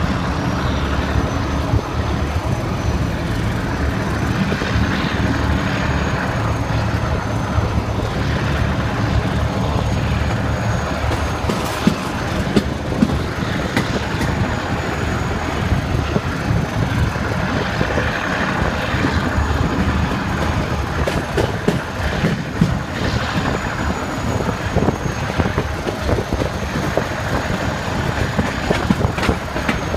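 Diesel-hauled heritage passenger train heard from a carriage window: the locomotive's engine working with a steady deep hum for the first ten seconds or so, after which the rattle and clatter of the coach wheels on the track comes through more. A faint high whine runs through it.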